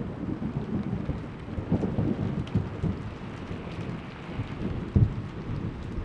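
Thunder rumbling low over steady rain, the rumble dying away with a short sharp peak about five seconds in, while rain hisses and drops tick throughout.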